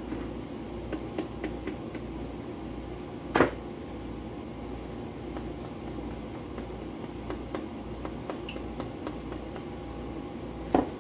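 Steady low hum of a kitchen appliance or fan, with a few light clicks of food-prep handling, a sharp knock about three seconds in and another just before the end.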